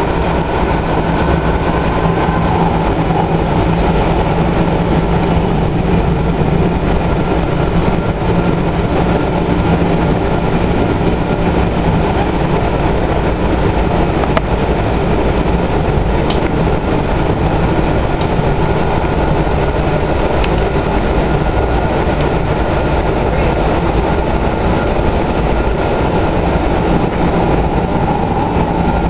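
2011 Kinki Sharyo light rail vehicle running at steady speed: a constant rumble of wheels on rail with a steady hum, and a few light clicks about halfway through.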